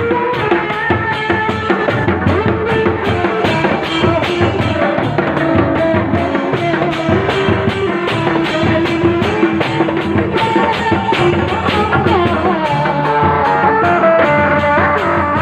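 Sundanese reak ensemble music: dogdog and kendang drums beaten in a fast, steady rhythm under a wavering melody line.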